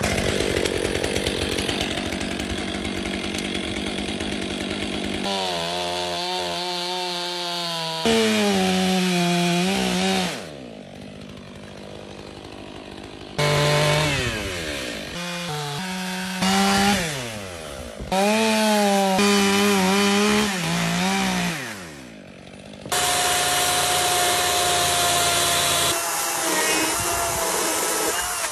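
Chainsaw cutting into wood, the engine pitch rising and sagging as the bar takes and leaves the load. Several sudden jumps in the sound, with stretches of steadier high-speed cutting in between.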